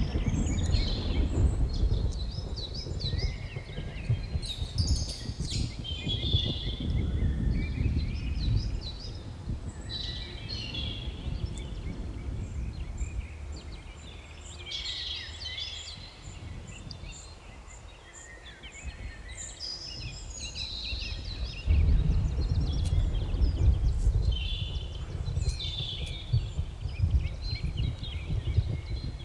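Many small birds chirping and trilling over a deep rumble. The rumble is heavy at first, fades through the middle and swells again a little past two-thirds of the way through.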